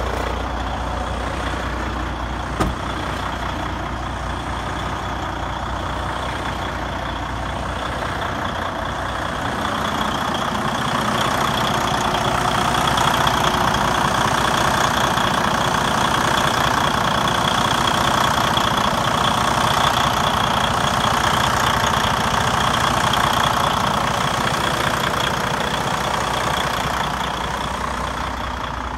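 Detroit DD15 inline-six diesel of a 2016 Freightliner Cascadia idling steadily, louder through the middle stretch and softer again near the end. There is a single sharp click about two and a half seconds in.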